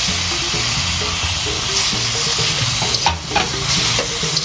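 Eggplant sizzling hard in a wok as a splash of water hits the hot oil, with a metal spatula scraping and knocking against the pan a few times about three seconds in.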